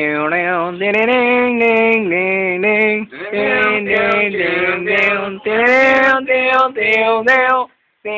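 A man singing a melody in long held notes, phrase after phrase, with a short break near the end.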